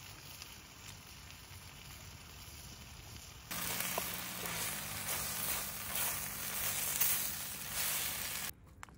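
A loud, dense hiss with a faint low steady hum under it starts suddenly about three and a half seconds in and cuts off suddenly near the end, over a fainter hiss before it.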